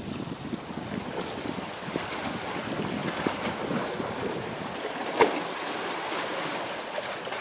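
Sea water lapping and splashing against shoreline rocks, with wind buffeting the microphone. A single sharp knock about five seconds in is the loudest sound.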